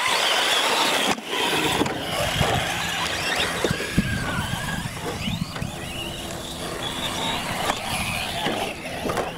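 Radio-controlled UTV trucks launching off the line and racing on dirt: the motors whine, rising and falling in pitch, over a steady hiss of spinning tyres throwing dirt. A sharp thump comes about four seconds in.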